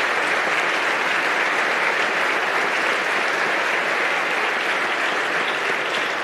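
Sustained applause from a large audience in a big hall, steady throughout and starting to fade near the end.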